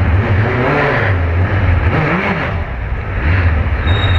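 Road traffic: car engines running and pulling away, over a heavy low rumble. About two seconds in, an engine note rises and then falls.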